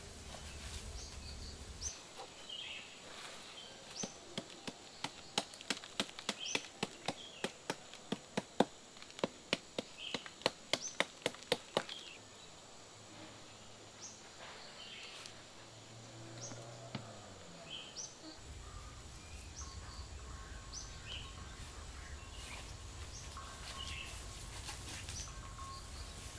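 Forest ambience: a bird gives short chirps again and again over a faint steady insect drone. About four seconds in, a run of sharp knocks, roughly two a second, lasts some eight seconds.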